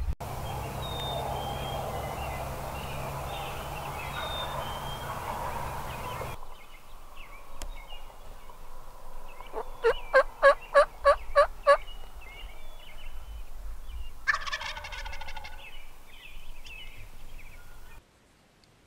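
Wild turkey gobbler gobbling: a rapid run of about eight quick falling notes lasting about two seconds, then a second, shorter call a few seconds later. Faint songbird chirps sit behind it, and there is a steady rushing noise for the first several seconds.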